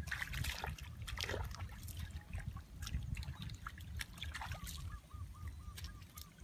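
Hands digging and splashing in shallow water and wet mud, with irregular squelches and splashes, busiest in the first second or so and again around four seconds in. A small repeated chirping call goes on faintly behind.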